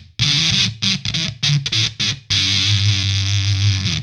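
Electric guitar through a Gamechanger Audio Plasma Pedal, a high-voltage fuzz, giving a harsh, very bright distortion with its high-frequency knob turned up. Short chopped notes cut in and out for about two seconds, then one note is held and stops abruptly at the end.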